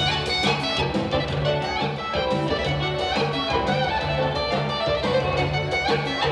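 Live band dance music played loud through PA loudspeakers, with a steady bass beat under a melody.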